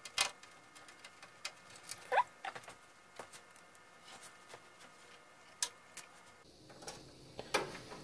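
Hand screwdriver turning small metal screws to fasten a motherboard into a steel PC case: faint, irregular clicks and ticks, with a brief squeak about two seconds in.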